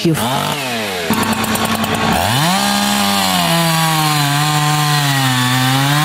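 Husqvarna two-stroke chainsaw running at high revs as it cuts through a log, its pitch sagging under load. About two seconds in it drops briefly and revs straight back up, and near the end the pitch rises again as the chain clears the cut.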